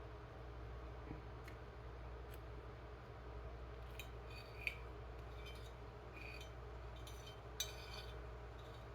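Cutlery clinking and scraping lightly on a plate, a few short clicks in the second half with two sharper clinks, over a low steady room hum.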